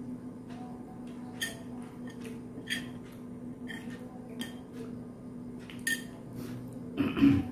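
A metal spoon clinking against ceramic plates while food is served: several light, separate clinks over a steady low hum, with one louder, duller knock near the end.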